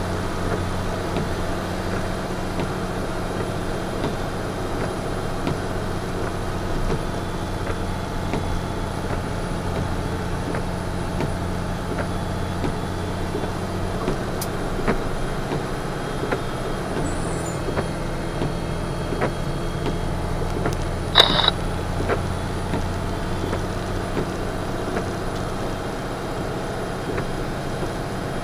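Western Star semi-trailer's engine droning steadily in the cab, held in third gear (splitter direct) while the fully loaded truck descends a steep hill. About three quarters of the way through comes one brief high-pitched squeal.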